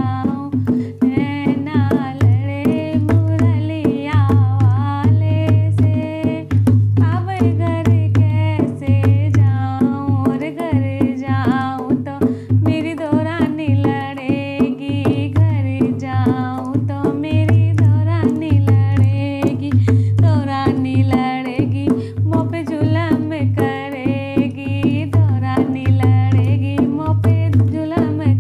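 A woman singing a Hindi devotional bhajan to Krishna, accompanying herself on a dholak with a steady rhythm of low booming and sharp slapped drum strokes.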